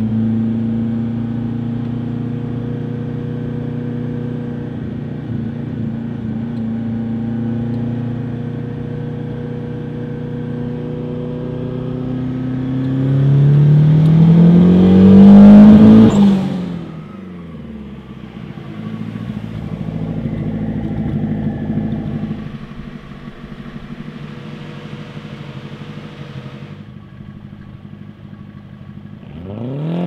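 VW Corrado's turbocharged 2.0-litre four-cylinder (9A) running steadily at cruise. It then accelerates hard, the engine note rising to its loudest about fifteen seconds in, before falling away sharply. After that it runs more quietly and begins to rev up again at the very end.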